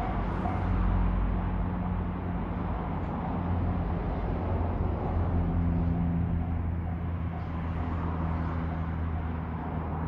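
Railway level crossing warning bell ringing in a fast, even repeating ding, partly buried under a loud, steady low rumble.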